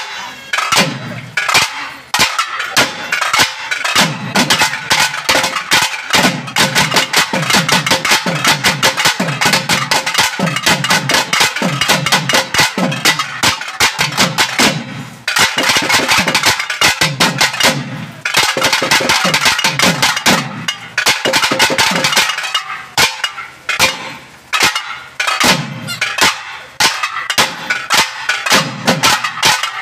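Naiyandi melam folk ensemble playing, led by thavil drums beaten in fast, dense strokes with a sustained higher melodic line over them. The drumming breaks off briefly a few times before picking up again.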